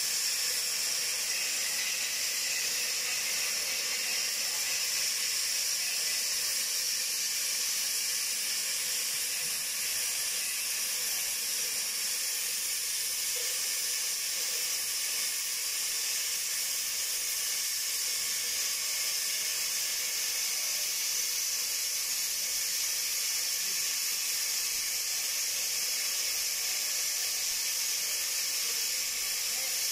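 Oxy-acetylene cutting torch hissing steadily as its flame and oxygen jet cut around a pipe.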